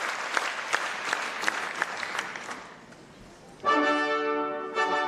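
Audience applause with sharp individual claps dies away, then the ballet orchestra strikes up with a loud held chord about three-quarters of the way in, breaking off briefly and sounding a second chord just before the end.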